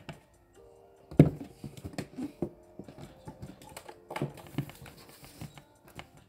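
A folded sheet of white model-making board handled on a wooden table: a loud knock about a second in, then a string of lighter taps, clicks and rustles as it is pressed into shape. Faint background music underneath.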